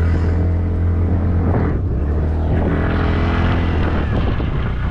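Motor scooter engine running as it rides along a road, a steady low hum that turns rougher and noisier about a second and a half in.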